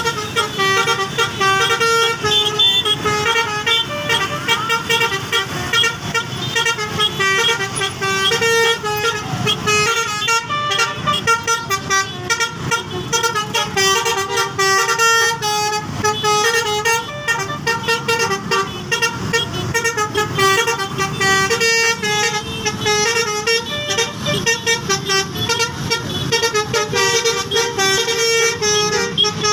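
Indonesian 'telolet' bus horn, a set of multi-tone air horns, playing a fast, continuous tune of quickly changing notes.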